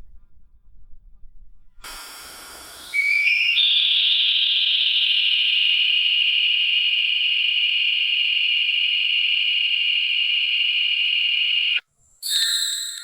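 Buzzing electric lights giving a high-pitched whine over a hiss: the hiss starts about two seconds in, the whine glides up in pitch and then holds steady for about eight seconds, cuts off suddenly, and a short burst of the same sound follows near the end.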